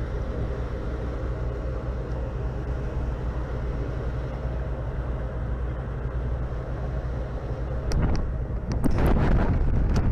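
Sternwheeler paddle boat's engine running steadily under way, a low hum. About eight seconds in, wind starts buffeting the microphone and grows louder.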